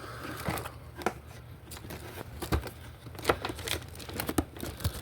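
Irregular small clicks, snaps and crinkling as a light's switch wires are cut and the plastic switch and wires are handled up close.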